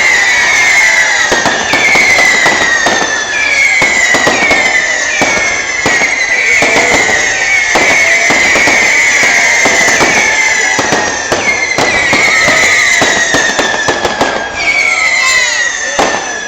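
Fireworks display: a rapid run of whistling fireworks, one starting about every second, each whistle falling slightly in pitch. Sharp bangs and crackles sound throughout, easing off near the end.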